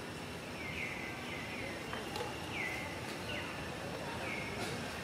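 A bird calling repeatedly: short, high notes that slide downward, about one a second, over a steady background hiss.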